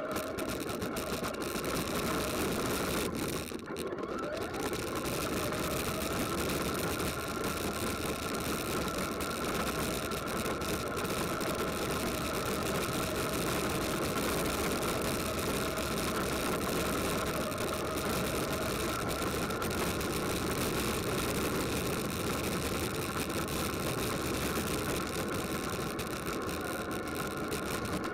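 Race vehicle engines running steadily, a continuous drone with a short dip about three and a half seconds in.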